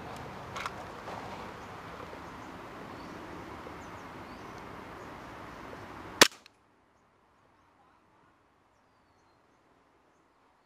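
Steady outdoor background noise with a few faint clicks, then a single loud, sharp crack about six seconds in, after which the sound cuts off abruptly to near silence.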